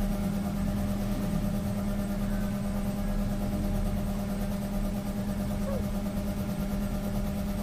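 Steady low hum of a running motor, unchanging in pitch and level.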